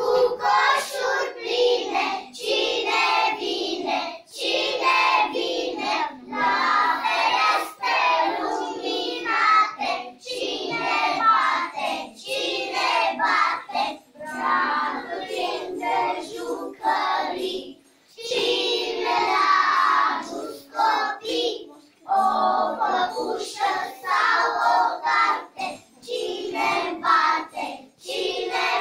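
A group of young children singing a song together, phrase after phrase with short breaths between.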